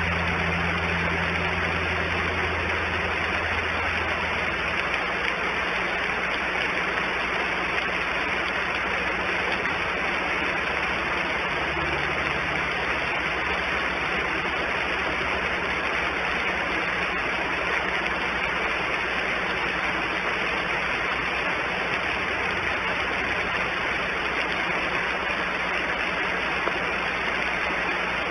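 Steady outdoor background hiss picked up by the nest camera's microphone. A low engine hum, typical of a vehicle, runs under it for the first few seconds and comes back briefly about halfway through.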